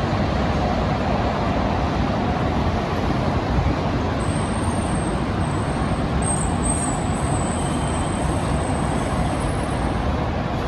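Train running past with a steady rumble; a thin, high-pitched squeal comes in about four seconds in and holds until near the end.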